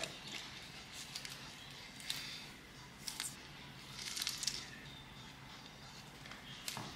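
Faint rustling of plastic curling ribbon being pulled off a spool and handled, with a few short, soft clicks from scissors working the ribbon.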